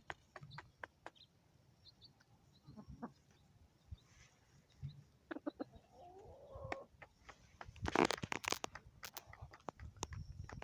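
Chickens pecking at feed, a scatter of sharp taps. A short chicken call comes about six seconds in, and a louder brief rustle around eight seconds.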